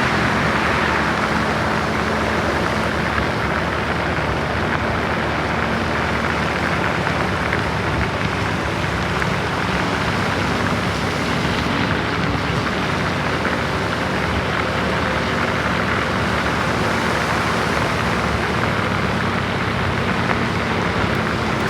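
A bus driving in the rain: a steady hiss of rain and wet road noise over the low, even drone of its engine.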